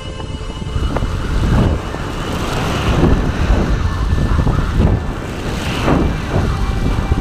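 Wind buffeting the microphone of a stratospheric balloon probe's onboard camera: a loud rushing noise in irregular gusts.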